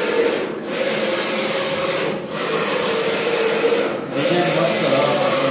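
Flat-bed screen printing machine running at its 1000 speed setting, the squeegee carriage sweeping across the screen. It makes a steady rubbing hiss with a hum, dipping briefly about every second and a half to two seconds.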